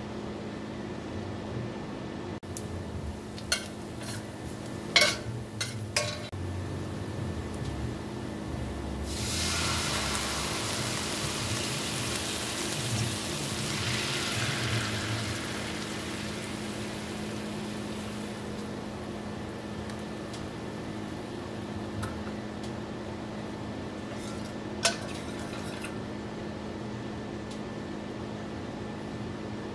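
A metal spoon clinks a few times against a stainless steel pot while minced garlic is stirred. Then liquids, soy sauce among them, are poured into the hot pot and sizzle for several seconds. A steady hum runs underneath, and there is one more clink of the spoon near the end.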